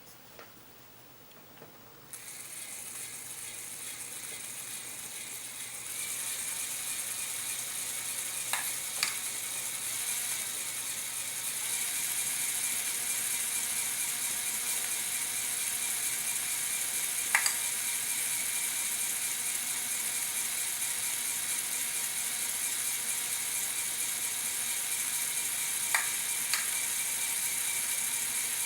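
Electric LEGO Technic motors driving the gear train of a kinetic horse sculpture, whirring steadily with a gear rattle. The whir starts about two seconds in, gets louder in steps, and is broken now and then by a sharp click.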